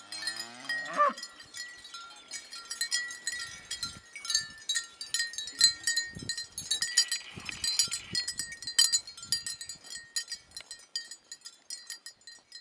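One rising moo from cattle, then a long run of light, chime-like clinks with ringing high tones.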